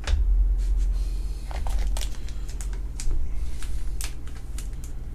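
Trading cards being handled and sorted on a table: a string of sharp clicks and rustles, over low rumbling bumps.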